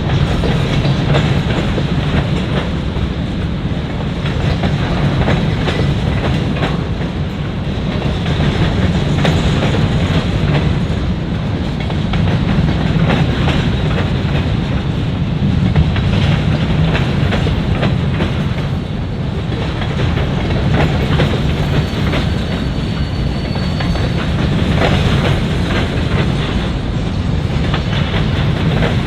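Freight cars of a grain train rolling past, a steady rumble of wheels on rail with frequent irregular clicks and clacks from the wheels crossing rail joints.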